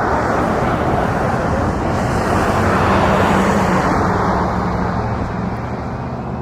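Boeing C-17 Globemaster III's four turbofan jet engines as the transport passes: a loud roar that swells to a peak about three seconds in and then fades, its low drone sliding lower as it goes by.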